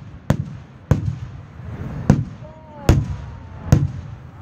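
Aerial fireworks shells bursting overhead: five sharp booms a little under a second apart, each followed by a low rumble.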